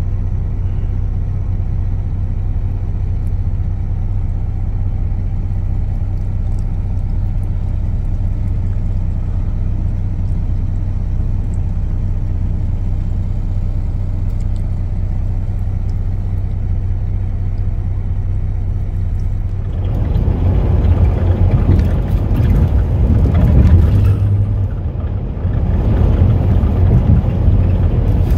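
Semi-truck's diesel engine idling steadily, heard from inside the cab as a constant hum. About two-thirds of the way in it gives way to the louder, rougher engine and road noise of the truck driving on the highway, with a short dip near the end.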